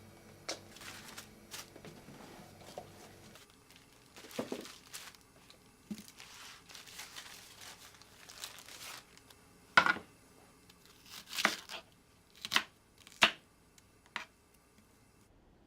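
Rustling and crinkling handling noises, then about five sharp knocks or clacks in the second half.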